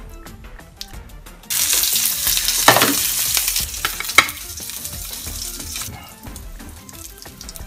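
Food sizzling in a hot frying pan: a loud sizzle starts suddenly a second and a half in, eases after about two seconds and fades out near the end. A couple of sharp clinks sound over it.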